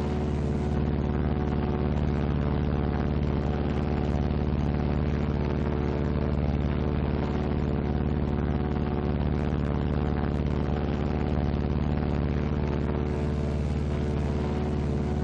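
Steady drone of a Martin B-26 Marauder's Pratt & Whitney R-2800 radial engine in flight, an even hum of several fixed low tones. The aircraft is flying on one engine, the other shut down for a single-engine approach.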